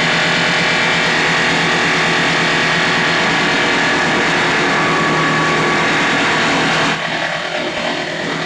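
37 kW hammer wood crusher running: a loud, steady, dense mechanical noise with a constant hum underneath. About seven seconds in it gets slightly quieter and more uneven.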